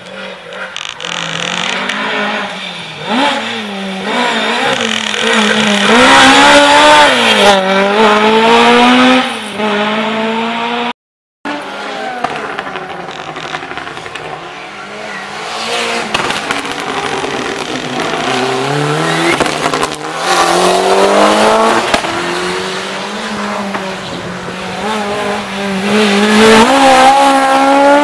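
Historic rally cars, among them Mk2 Ford Escorts, being driven hard past the spectators. The engines rev up and drop back again and again through the gear changes. The sound cuts out for a moment about eleven seconds in.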